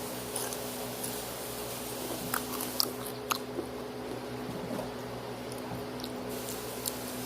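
Mouth chewing and crunching Takis rolled tortilla chips, a scatter of short crisp crunches a few times over the seconds.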